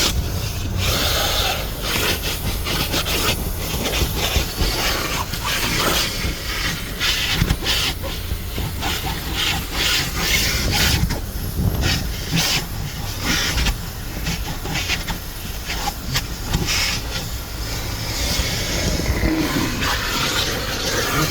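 Vacuum cleaner running steadily while it cleans a car interior, with frequent short scrapes and clicks as the nozzle works over the surfaces.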